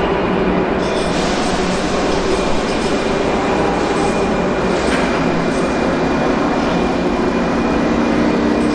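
Škoda boxy Bo'Bo' electric locomotive of the 162/163/362/363 family easing a passenger train away. A steady electrical whine from its drive sits over the train's rumble, with a lower hum that grows in the second half as it gathers speed.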